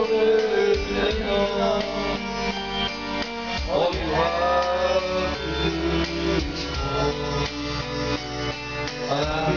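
Karaoke backing music with guitar playing an instrumental passage between sung lines.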